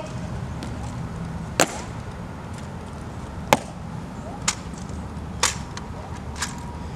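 Sharp single clicks of the Tomb Guards' metal-tapped shoes striking the stone plaza, five in all, the last three about a second apart, over a low steady background rumble.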